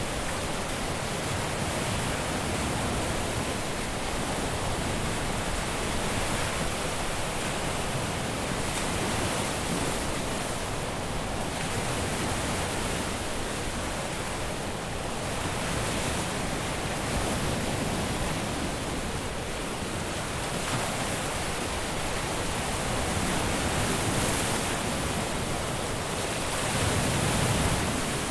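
Caribbean sea surf washing onto a beach: a steady wash of breaking waves that swells gently now and then, most strongly near the end.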